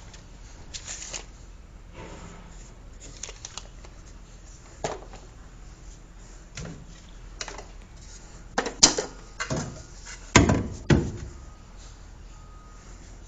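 Scattered clicks and knocks from plastic drain pipe fittings and tools being handled, with a few louder knocks in the second half.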